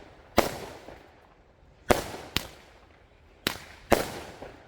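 Eight-shot 200-gram firework cake firing: a series of about five sharp bangs at uneven gaps, each echoing away, one of them noticeably fainter.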